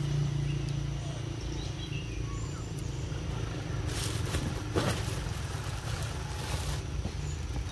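Outdoor ambience: a steady low hum, faint scattered chirps, and a few brief rustling noises about four to seven seconds in.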